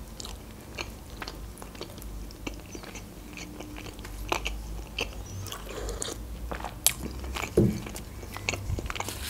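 Close-miked chewing of a mouthful of cherry pie: many short, scattered mouth clicks and smacks.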